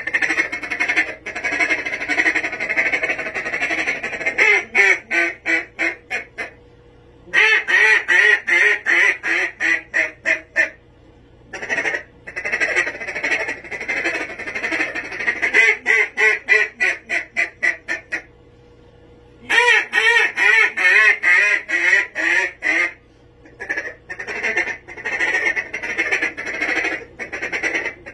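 Havoc Calls Villain duck call blown through a contest-style mallard calling routine: series of loud quacks, some drawn out and some in fast runs of short notes, broken by a few brief pauses.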